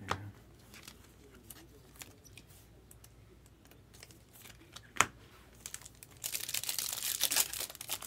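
Light clicks of cards being handled, with one sharp click about five seconds in. From about six seconds, a trading-card pack's plastic wrapper is torn open and crinkled.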